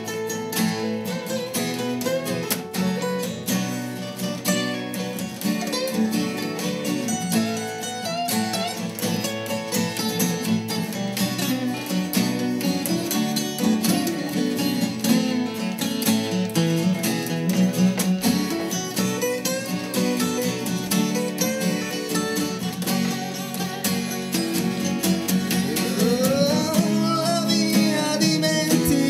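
A live acoustic band: several acoustic guitars strumming chords over an acoustic bass guitar in an instrumental passage of a song. A male voice comes in singing near the end.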